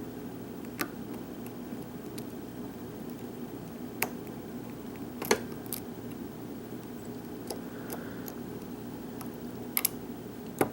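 Lock pick working the pins of a pin-tumbler lock under tension: a handful of sharp, widely spaced metallic clicks, two of them close together near the end, over a steady low hum.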